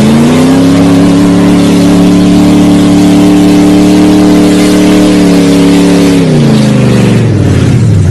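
Lifted pickup truck's engine revving hard with its tyres spinning in mud. The revs climb in the first half-second and hold high and steady for about six seconds, then fall away over the last two seconds.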